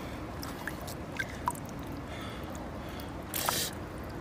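Shallow seawater sloshing and dripping as gloved hands tug at a fish wedged in a rock crevice, with a few small drips and a short splash about three and a half seconds in.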